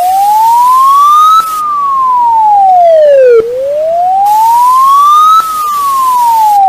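Emergency alert siren wailing loudly. A single tone rises slowly for about two seconds and falls for about two seconds, over and over.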